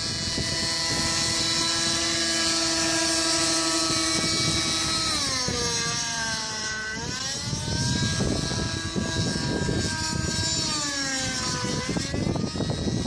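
TSA Infusion 600N nitro model helicopter's engine and rotor running in flight overhead, a steady high-pitched whine. About five seconds in, the pitch sags and climbs back, and near the end it dips once more.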